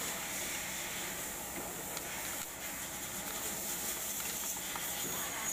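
Steady background hiss with a faint, high-pitched whine running through it, and no distinct tool sounds.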